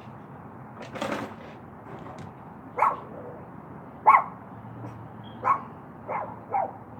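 A dog barking: five short barks from about three seconds in, the last three closer together. A brief noise comes before them, about a second in.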